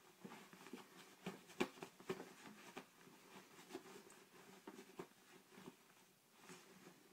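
Miniature dachshund puppy digging at a blanket in its dog bed: soft, irregular scratching and fabric rustling from its paws, with a sharper knock about a second and a half in.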